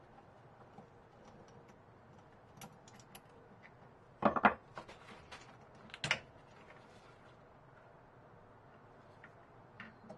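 Hand tool and metal parts clicking and clattering while the ignition coil of a Stihl HS45 hedge trimmer is fitted, mostly faint, with a quick run of sharp rattling clicks about four seconds in and another about six seconds in.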